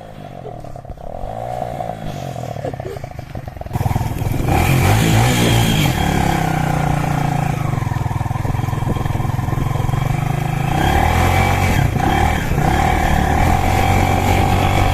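Kawasaki Ninja sport motorcycle engine running, its pitch rising and falling at first, then suddenly much louder about four seconds in and staying loud.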